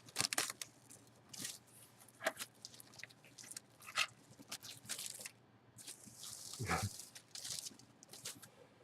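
Plastic packaging crinkling and rustling in the hands as a sealed memorabilia jersey package is handled and opened: irregular crackles and clicks, with a denser run of crinkling about six seconds in and one dull thud near seven seconds.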